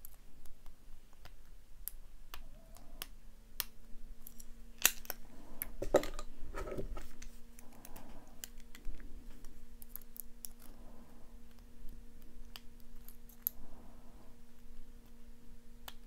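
Lock pick and tension wrench working the pins of a Master Lock Pro Series 6835 pin-tumbler padlock: many small metallic clicks and ticks, with a burst of louder clicking and clattering about five to seven seconds in.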